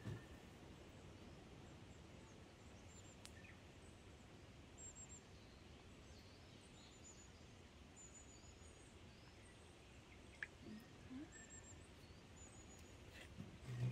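Faint outdoor quiet with small birds calling: short, high chirps, often doubled, every second or two, plus an occasional tiny click.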